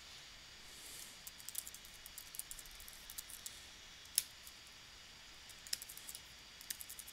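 Faint typing on a computer keyboard: a quick run of keystrokes for a couple of seconds, then a single louder key press, the Enter key, about four seconds in, and a few more taps near the end.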